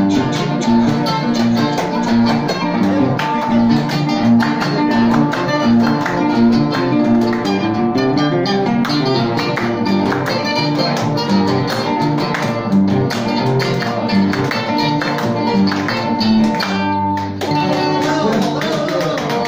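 Four acoustic guitars playing together live, a quick plucked melody over chords in Peruvian Andean style.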